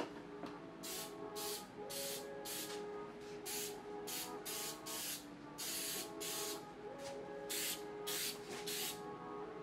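Aerosol spray can sprayed in about a dozen short bursts, with one longer burst near the middle.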